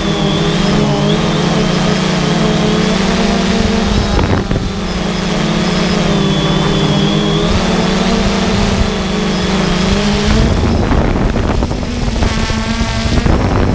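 3DR Solo quadcopter's electric motors and propellers humming steadily, picked up close by the GoPro carried on the drone, the pitch wavering slightly. About ten seconds in, the steady hum breaks into a rougher, windier sound, with a brief higher buzz near the end.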